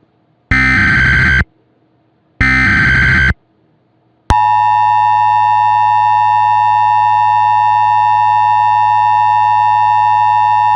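Emergency Alert System tones: two screechy one-second bursts of SAME header data with a short gap between them, then, about four seconds in, the steady two-tone EAS attention signal (853 and 960 Hz) sounding loudly.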